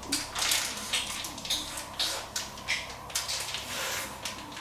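Someone eating a piece of chicken liver: soft, irregular mouth clicks from chewing and nibbling, a few a second.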